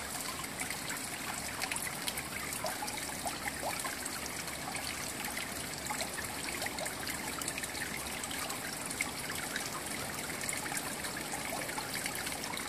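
Running water trickling steadily, an even splashy hiss with small crackles all through.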